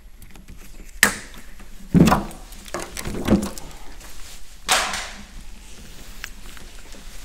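Handling noise from a coiled pressure washer hose being lifted and unwound: several sharp knocks and clatters, about a second apart.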